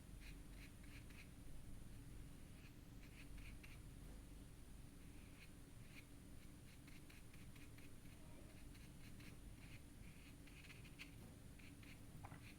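Faint, quick scratching strokes on paper, many short strokes in a row, over a faint steady hum.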